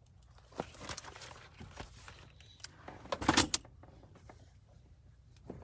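Handling noise from a phone camera being moved and repositioned: rustling and scraping with scattered clicks, and a cluster of louder knocks a little past halfway.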